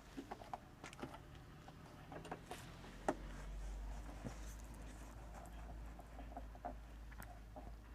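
Brother LS14s domestic sewing machine: a few light clicks of handling, then from about three seconds in its motor runs with a steady low hum under small ticking as it stitches.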